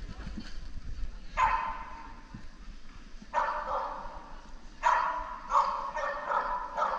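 Dog barking in a large indoor arena, the barks echoing: one bark about a second in, then a quicker run of barks from about halfway on.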